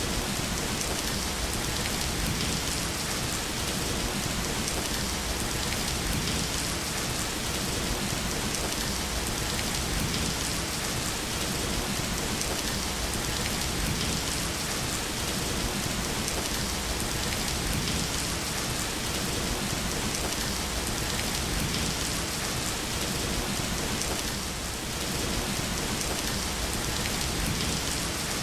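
Steady rain falling, an even hiss of countless drops without a break, dipping slightly in loudness for a moment near the end.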